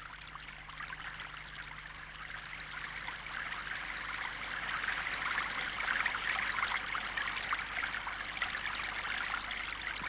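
Running water, a steady trickle like a small stream, growing a little louder toward the middle.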